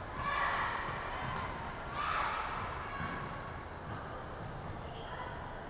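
Echoing sports-hall sound during a basketball game: distant voices call out across the court twice, near the start and about two seconds in, over a steady low rumble of play.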